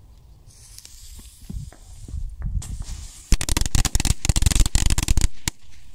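A fuse hisses, then a bundle of small firecrackers goes off in a rapid string of sharp bangs lasting about two seconds, with one last crack just after.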